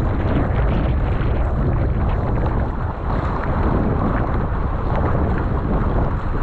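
Strong 25–35 knot wind buffeting the microphone in a loud, steady rumble, over the rush of water around a surfski on open, choppy water.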